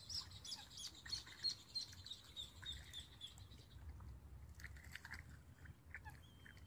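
Quick run of high, faint chirps, about four or five a second, drifting slightly lower in pitch over the first three seconds. A few soft clicks follow, then a short thin whistle near the end, over a low outdoor rumble.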